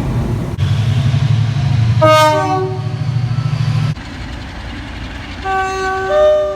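Train horn sounding a chord of several notes at once for about a second and a half, over a low steady locomotive rumble. After an abrupt cut, a second train horn blows its own multi-note chord for about a second and a half near the end.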